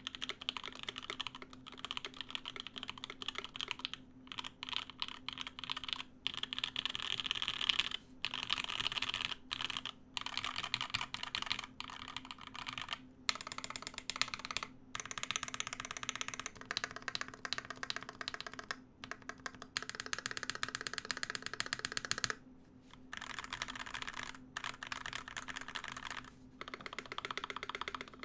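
Custom mechanical keyboard in a DeltaBlade case, with lubed and filmed JWK Tourmaline v2.5 switches and GMK keycaps, typed on steadily in rapid runs of keystrokes broken by brief pauses. A low, steady fan hum runs underneath.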